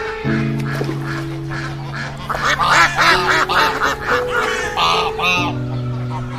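Ruddy shelducks calling: a run of short, repeated calls, quickest and loudest in the middle, over soft piano music.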